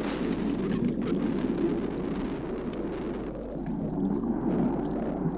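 Muffled, steady rumble of water rushing past a submerged pole camera, with a low steady hum beneath it.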